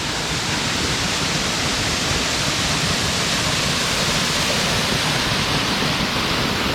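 Waterfall: a steady, really loud rush of falling water.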